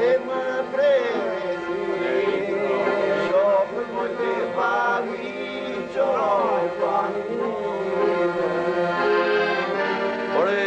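A man singing a song in Albanian to piano accordion accompaniment, his voice wavering and gliding in ornamented phrases over the accordion's steady held notes.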